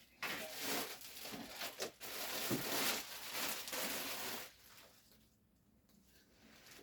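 Packaging rustling and crinkling in uneven surges for about four seconds, then dying away to a low background.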